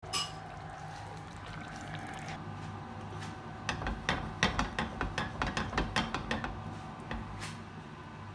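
A quick run of sharp knocks, about three or four a second, over a steady low hum, with one last knock near the end.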